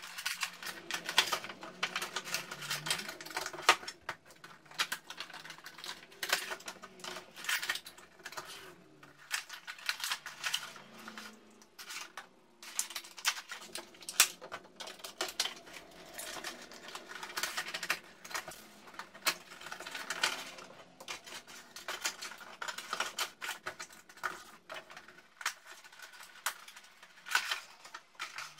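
Funko Pop cardboard window boxes and their clear plastic inserts being handled as the vinyl figures are packed back in: irregular clicking, crinkling and scraping of plastic and cardboard.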